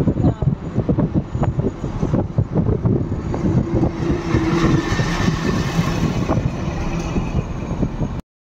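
Engine and road noise of a moving vehicle heard from inside it, a steady low rumble with fluttering, in city traffic. It cuts out abruptly a little before the end.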